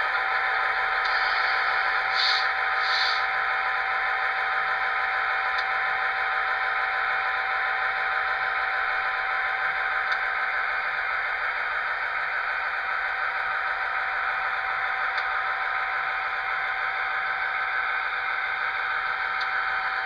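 LokSound decoder's F40PH diesel prime-mover sound, played through the model locomotive's small speaker and running steadily as the HO-scale engine backs up, with a steady whine under it.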